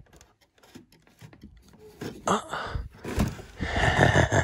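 About two seconds of near quiet, then rustling and scraping as thermostat wire is pulled by hand through a drop-ceiling opening, rubbing against the ceiling tiles and grid, with a few light knocks; it grows louder near the end.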